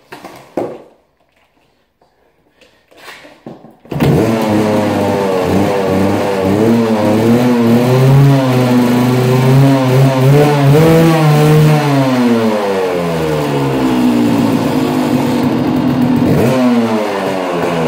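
A 1993 Kawasaki KDX200's two-stroke single-cylinder engine. After a few faint knocks it starts suddenly about four seconds in, then runs with the throttle blipped, its pitch rising and falling, and drops back lower near the end.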